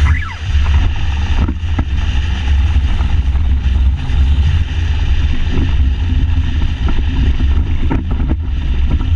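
Wind buffeting the microphone hard over the steady drone of an ultralight trike's engine in motion.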